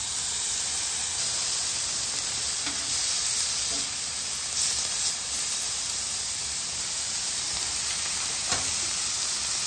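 Shrimp and a steak sizzling steadily on a very hot Weber flat-top griddle set on high, searing for a crust. A few light clicks of a metal spoon and tongs come against the griddle as the pieces are laid down and turned.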